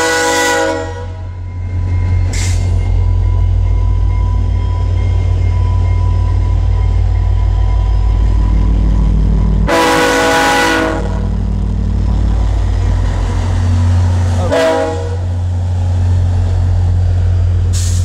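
VIA Rail F40PH diesel-electric locomotive passing close by with a heavy engine rumble, sounding its multi-note horn three times: a short blast at the start, a longer one about ten seconds in, and a brief one around fifteen seconds.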